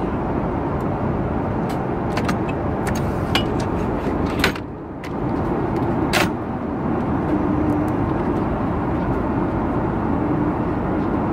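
Steady airliner cabin noise, with a scatter of sharp plastic clicks and knocks as the seat's side console lid and fold-out tray table are handled and unfolded, the loudest a little before the middle and about a second later.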